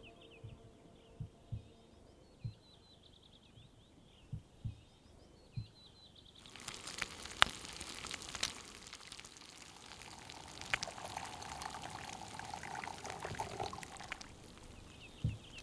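Bacon and eggs sizzling in a frying pan on a gas-canister camping stove, a dense crackle with sharp spitting pops, coming in suddenly about six seconds in and stopping near the end. Before and after it, a bird's repeated high chirps and a few low thumps.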